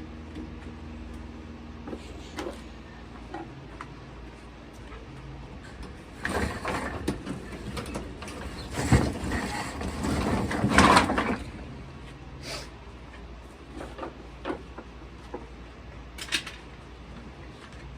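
Shop handling noise as wooden boat-frame pieces and clamps are moved and set: scattered knocks and clicks, with a busier stretch of scraping and clattering in the middle.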